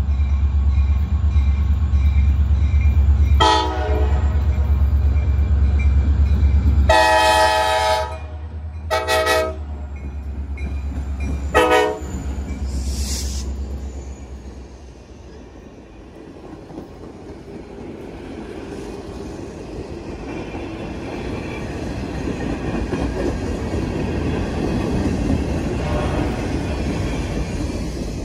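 Diesel freight-railroad locomotive passing a grade crossing with its engine rumbling heavily, sounding four horn blasts, the second the longest, as the crossing bell rings. After the locomotive the rumble fades and a string of passenger cars rolls past, the wheel noise growing louder toward the end.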